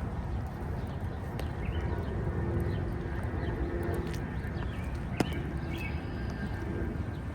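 Footsteps on a wet park path over a steady low rumble, with scattered short bird chirps and one sharp click about five seconds in.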